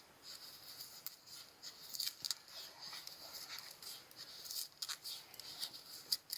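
Knife blade shaving thin curls down a wooden stick to make a kyspa, a Yakut feather stick for lighting a fire: short, irregular scraping strokes.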